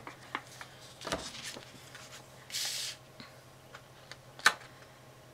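Paper crafting handled on a cutting mat: scattered light clicks and taps as an ATG tape gun is set aside and a paper panel is picked up, with a brief paper rustle about halfway and a sharp tap near the end, over a faint steady hum.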